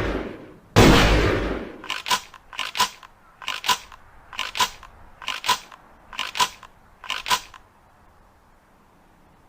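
Ithaca Model 37 pump-action shotgun: the end of one shot dying away, then a single shot less than a second in with a long decaying boom. Then seven pairs of sharp metallic clicks, evenly spaced about a second apart, from the gun's mechanism being worked or loaded.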